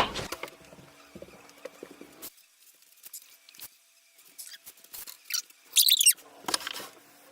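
Faint clicks and knocks of things being handled, then about six seconds in a short, loud, high burst from an aerosol can of fly spray.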